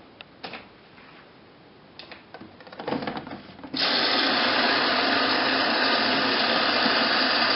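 A few faint clicks, then about four seconds in water suddenly starts rushing into a washing machine as its fill valve opens: a steady, loud hiss.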